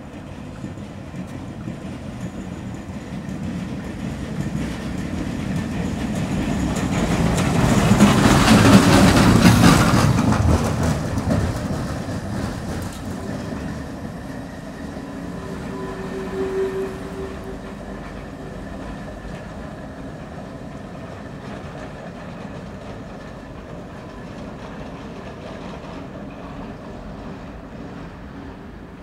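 Muki freight tram motor cars towing a MillFAV metro car pass on tram tracks, the steel wheels rumbling and clacking over the rails. The noise swells to its loudest about eight to ten seconds in, then fades as the convoy moves away.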